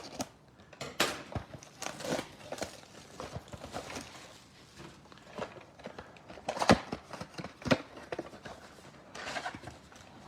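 Foil trading-card pack torn open and the cards handled: crinkling and tearing with scattered sharp clicks, the two loudest snaps about two-thirds of the way through.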